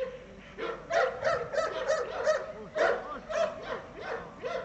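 Cane Corso barking at a training helper with a bite sleeve, in a fast run of barks about three a second.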